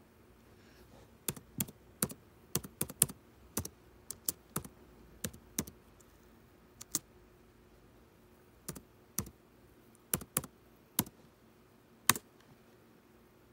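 Typing on an HP laptop keyboard: irregular sharp key clicks, a quick run of keystrokes in the first few seconds, then scattered single presses, one of the loudest near the end.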